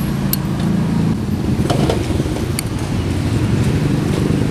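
Motor vehicle engine running in street traffic, a steady low hum, with a few light clinks of a metal spoon against a ceramic bowl.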